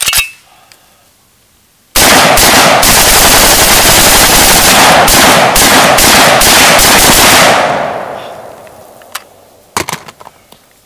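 AKS-74U short-barrelled 5.45×39 mm Kalashnikov carbine firing full auto: a brief burst right at the start, then one long burst of about five and a half seconds. A few sharp clicks follow near the end as the rifle is handled.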